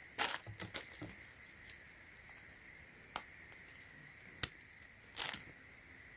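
Small plastic clicks and handling noise of a cheap charging cable's plug being pushed and fumbled into its socket, a connector that doesn't want to click in. A flurry of clicks at the start, one sharp click about four seconds in, and a brief rustle just after.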